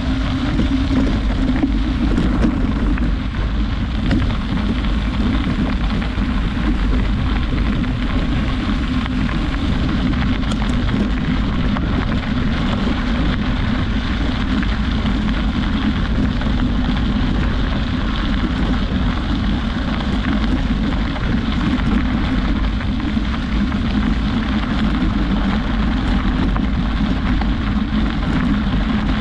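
Wind buffeting a moving microphone: a loud, steady rumbling rush with no breaks.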